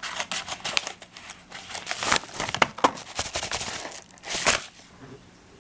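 Scissors cutting through a paper mailer envelope, with the paper crinkling and rustling as it is cut and opened: a rapid run of snips and crackles, the loudest crinkle about four and a half seconds in.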